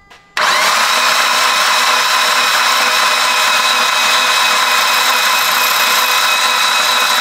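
Starter motor cranking the Mitsubishi Lancer Evolution X's brand-new 4B11T four-cylinder with the spark plugs out, spinning it evenly without firing to build oil pressure. The steady whir starts about half a second in and cuts off abruptly near the end.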